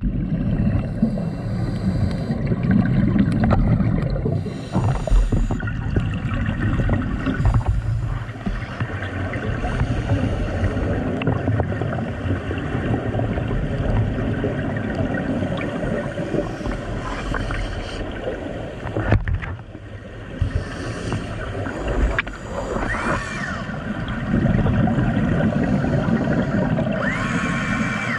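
Scuba regulator exhaust bubbles heard underwater: a low rumbling gurgle that swells in long bursts as the diver breathes out. A faint whine rises and falls twice near the end.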